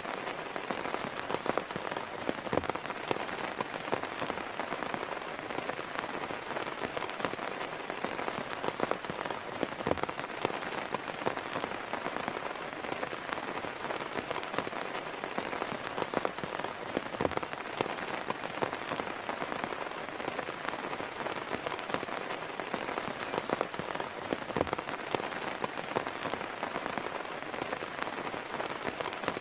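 Heavy rain falling steadily, with a few individual drops now and then landing loud and close.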